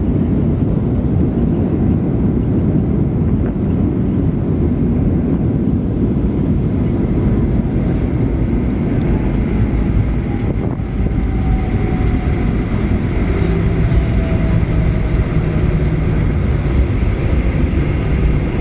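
Cabin noise aboard a Boeing 737-900ER rolling out after landing: a loud, steady rumble, with faint engine whine tones that slide down in pitch in the second half as the aircraft slows.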